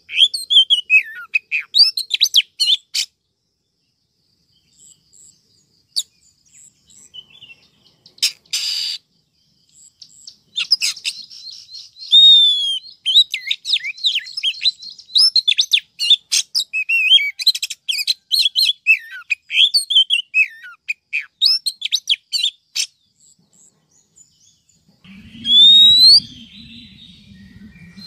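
Female oriental magpie-robin calling: quick runs of chirps and short whistled notes in bursts, with a pause before the end. A short rasping burst comes about a third of the way in, and near the end a loud rising whistle sounds over a low hum.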